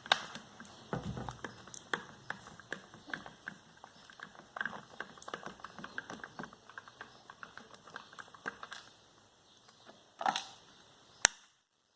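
Quick, irregular small clicks and taps of hands working the plastic rear cover of a column fan to take it off, thinning out after about nine seconds, with a louder rustle a little after ten seconds and one sharp click shortly after.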